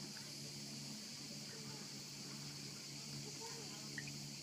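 Steady high-pitched chorus of cicadas, with faint distant voices underneath.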